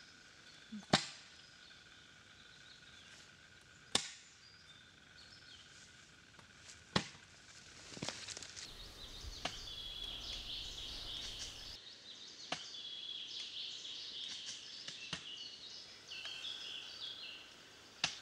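Seven sharp, short hits a few seconds apart, the loudest about a second in, over quiet woodland ambience. Faint high chirping, like birds, runs from about eight seconds in until near the end.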